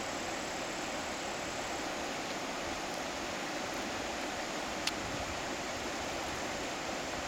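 Steady rush of river water over falls, an even hiss that does not change. One brief sharp click about five seconds in.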